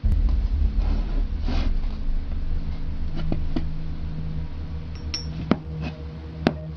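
Steady low hum and rumble of handling noise, easing off slowly, with about five sharp clicks and a short metallic clink in the second half as a magnet and a thick copper tube are handled.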